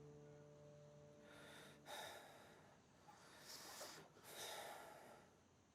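Faint breathing: three slow, airy breaths, after a held music chord dies away about two seconds in.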